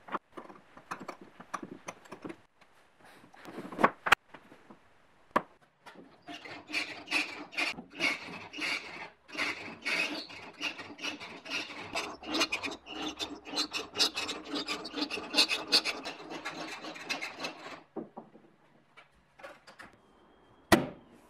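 Wooden parts and hardware being handled: scattered clicks and knocks at first, then about twelve seconds of dense, rapid rubbing and scraping strokes of wood, ending in a sharp knock near the end.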